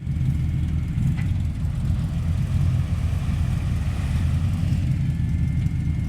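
A motor vehicle's engine running steadily with a low, even rumble.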